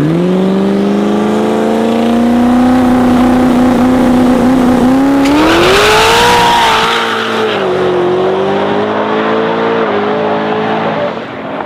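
Twin-turbo Ford Coyote V8 in an F-150 drag truck revving up and holding steady revs at the start line, then launching on a 10 psi boost test pass. About five seconds in the pitch climbs sharply with a brief rush of tyre noise, then the engine note settles lower and fades as the truck pulls away.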